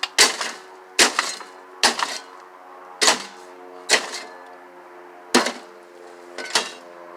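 An old microwave's metal insides being struck repeatedly, seven sharp blows spaced about a second apart, each with a short ringing rattle of metal after it.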